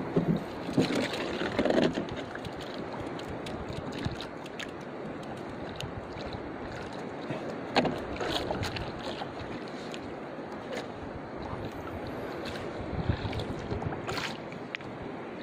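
Water lapping against the hull of a small wooden canoe at sea, with wind on the microphone and a few short knocks on the hull, clustered near the start and again around the middle and near the end.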